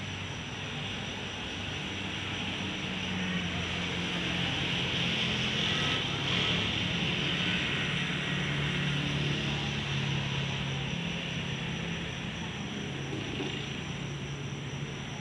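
Diesel engine of an Alsthom locomotive re-engined with an MTU unit, a steady low drone as the train approaches. It swells toward the middle and eases slightly near the end.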